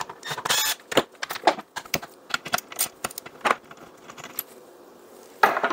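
A cordless drill-driver whirring in short bursts as it backs screws out of a chainsaw's plastic housing, once near the start and again near the end, with many light clicks and rattles of screws and plastic parts being handled in between.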